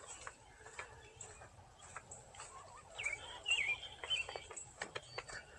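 A bird chirping a few short calls about three seconds in, over scattered small clicks and taps.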